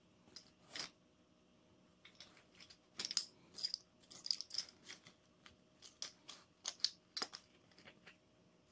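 Soft, irregular crinkling and clicking of a plastic cosmetics bag, with the makeup tubes inside knocking together, as a cat paws and noses at it.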